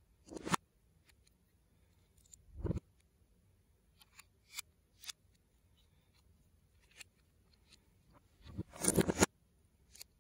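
Plastic LEGO bricks and plates clicking as they are handled and pressed together, in a few separate snaps with a quick run of clicks and crunching near the end.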